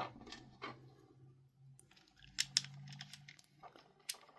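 A few faint, sharp clicks and taps of a small screwdriver and plastic controller parts being handled while a security Torx screw is driven into an Xbox controller shell.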